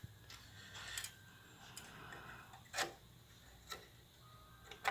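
A few faint, scattered clicks and taps of a motherboard's M.2 drive cover being handled and slid into place over an M.2 solid state drive, with the sharpest clicks in the second half.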